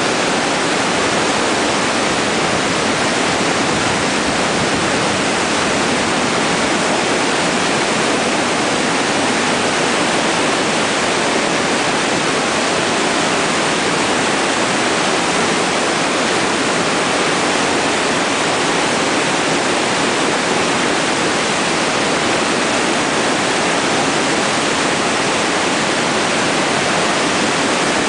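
The Niagara River's Class 6 whitewater rapids make a loud, steady rush of churning, breaking water.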